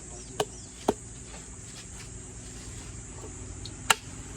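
Three sharp knocks over a steady background hiss: two about half a second apart, then a third, the loudest, about three seconds later.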